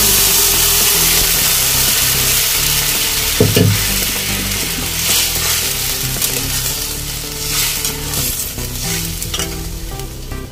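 Boiled mutton trotters and their stock sizzling in hot oil in a kadai while a metal spatula stirs them, with a knock of the spatula against the pan about three and a half seconds in. The sizzling gradually dies down as the liquid settles into the oil.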